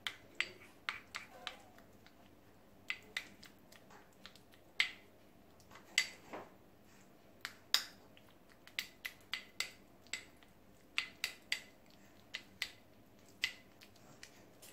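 White plastic spoon stirring a Vaseline and aloe vera face cream in a clear plastic tub, clicking and scraping against the sides. The clicks come irregularly, some in quick runs, with short quiet gaps between.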